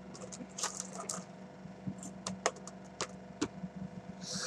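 Irregular light clicks and taps of small objects being handled and set down on a wooden tabletop while making slime, with a short hiss near the end.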